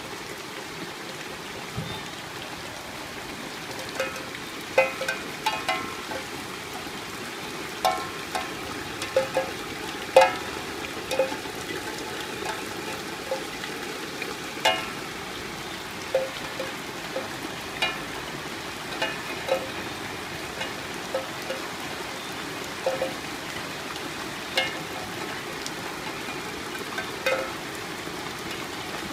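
Rushing water of a rain-swollen stream, a steady hiss, with many short, sharp pitched blips scattered over it at irregular intervals.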